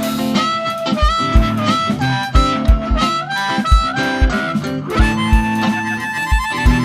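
Live blues band playing an instrumental break, a harmonica taking the lead with bending notes over guitar, bass and a steady kick drum.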